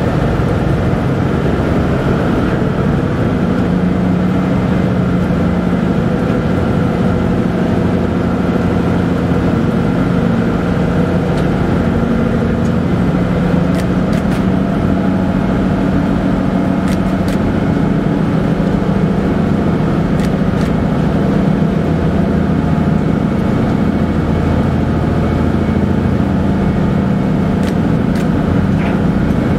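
Car ferry MV Mayne Queen's engines running steadily underway, a loud low drone with a steady hum, heard from on board. A few faint ticks sound over it.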